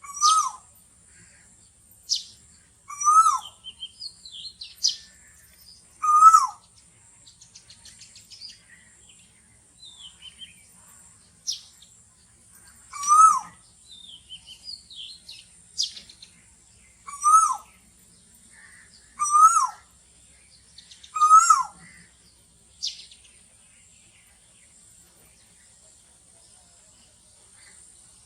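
Asian koel calling a short, hooked 'koo' note again and again, seven times at gaps of two to four seconds. Softer chirps and trills of other birds come in between, over a steady high-pitched drone.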